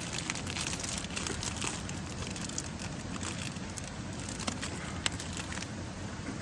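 Steady rushing of a waterfall, with a few light clicks and crinkles over it.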